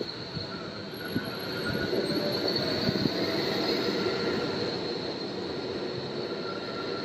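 Yellow Berlin street tram running along the street close by: a rumble with a high steady tone above it, swelling about a second or two in and easing off toward the end.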